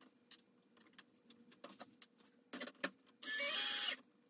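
Light clicks and taps of plastic parts and screws being handled, then about three seconds in a cordless drill/driver whirs for under a second, driving a screw into a plastic panel at its lowest speed setting.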